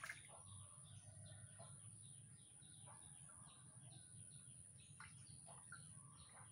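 Faint, regular bird chirping: short falling notes repeated about three times a second. A brief splash at the very start as a fish swirls at the pond surface.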